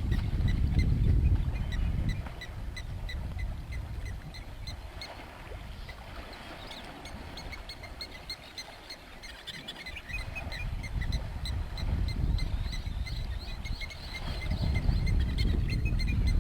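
Outdoor ambience: birds chirping, one repeating a short high chirp several times a second, over a low rumble that eases after about two seconds and returns near the end.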